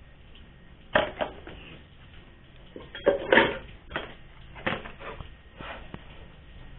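Kitchenware being handled: a run of irregular knocks and clinks of bowls, dishes and a wok, loudest a little after three seconds in.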